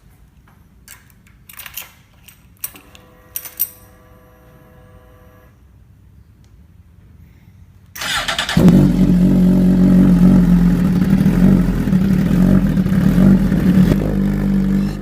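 A few faint clicks and a brief faint whine, then about eight seconds in a motorcycle engine starts suddenly and loud: the Suzuki Satria F150 Fi's single-cylinder four-stroke running through an R9 GP aftermarket racing exhaust.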